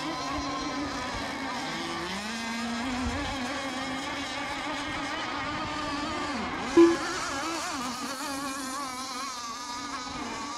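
Several radio-controlled racing boats running on the course: a buzzing, whining engine drone whose pitch rises and falls as the boats speed up, slow and pass. A short, loud blip of a tone about seven seconds in.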